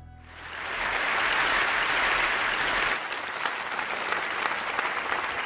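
Audience applause that swells up within the first second, then drops suddenly to a lower level about three seconds in, with single claps standing out.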